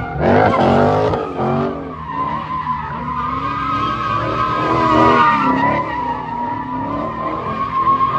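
Car tyres squealing without a break as a car spins donuts, over an engine revving up and down. It is loudest about half a second in and again around five seconds.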